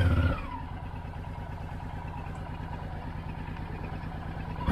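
Motorcycle engine idling steadily after a rev dies away just after the start.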